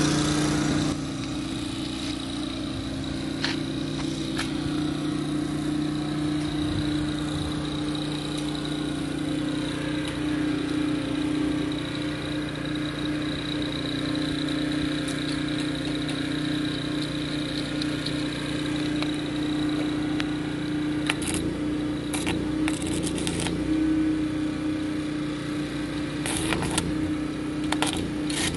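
Philking 4200 inverter generator engine running steadily under a heavy welding-machine load, its pitch rising slightly about three-quarters of the way through. Clusters of sharp clicks and taps come near the end.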